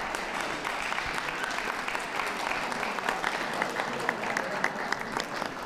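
Audience applauding: many hands clapping at once, steady throughout.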